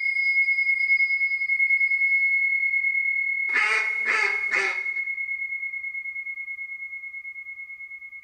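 A struck chime rings on in one high, wavering tone that slowly fades. About three and a half seconds in come three quick, duck-like quacks.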